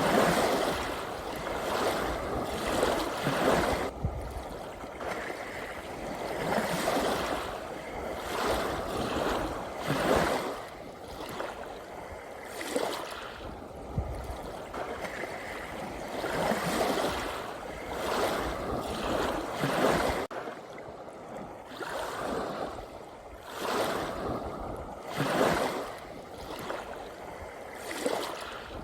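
Ocean waves washing in and falling back, swelling and fading every few seconds.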